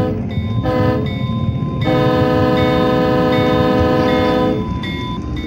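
Diesel passenger locomotive's horn sounding a short blast, then a long one, over the low rumble of the passing train.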